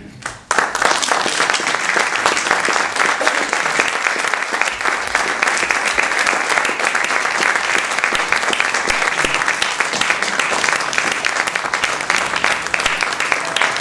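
Theatre audience applauding, a dense, steady clapping that starts suddenly about half a second in.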